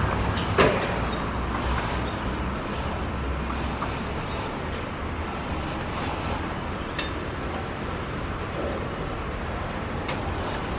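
Distant Boeing 777-300 jet engines running as the airliner lines up on the runway for takeoff: a steady broad rumble.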